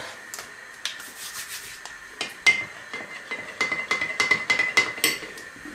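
Paper pudding sachet rustling, then a metal spoon stirring pudding powder into a glass of cold milk, clinking against the glass about five times a second.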